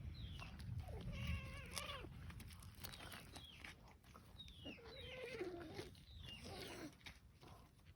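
Kittens mewing repeatedly: about five high-pitched calls that fall in pitch, the longest about a second in, over a low rumble.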